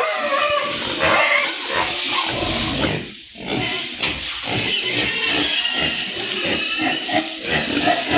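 Pigs calling loudly and almost without a break, with a brief lull about three seconds in.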